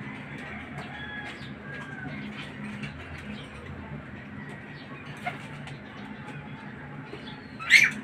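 Caged lovebirds chirping and twittering in short calls, with one loud, sharp shriek near the end.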